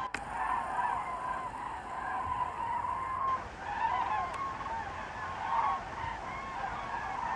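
A large flock of migrating geese honking in flight: many calls overlapping in a continuous chorus, with a brief click right at the start.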